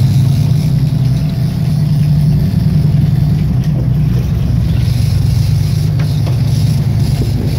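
Sportfishing boat's engines running steadily under way, a low drone with the rush of wind and water over it.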